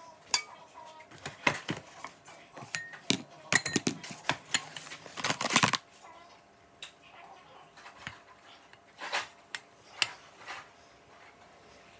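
A metal fork and utensils clinking and tapping against bowls. The clicks come thick and fast for about the first half, then thin out to a few scattered taps as the fork stirs in a bowl.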